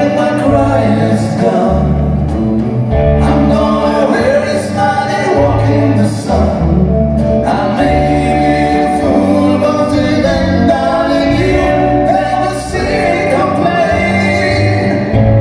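Live band music: two male voices sing together over electric guitar, bass and drums, with strong bass notes that change every second or so.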